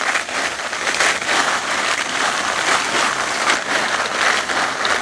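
Tap water running onto dried red chilies in a mesh colander while hands rub and toss them: a steady splashing with many small crisp crackles from the dry pods.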